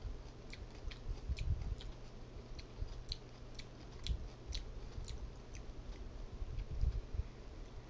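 Close chewing of a jalapeño pepper: irregular sharp, wet mouth clicks, with a few dull low thumps.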